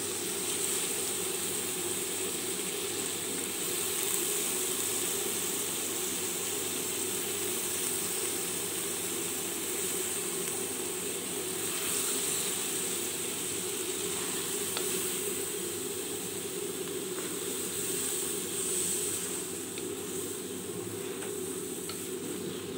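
Shrimp and sliced patola (sponge gourd) sizzling steadily in an aluminium wok, stirred now and then with a wooden spatula that scrapes lightly against the pan.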